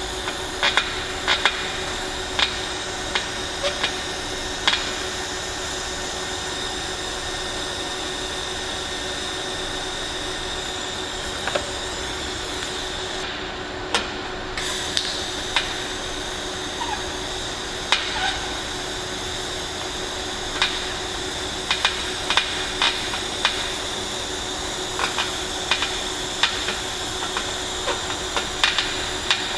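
TIG welding arc on thin-wall stainless steel pipe: a steady hiss with a steady hum, dotted with short sharp ticks. The hiss breaks off briefly about 13 seconds in and then resumes.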